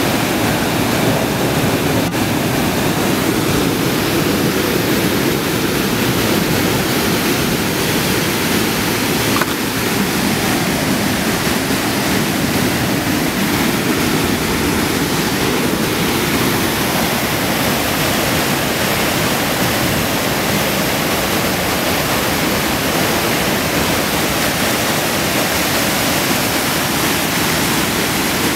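Brown floodwater rushing and pouring over a ledge in a loud, steady cascade.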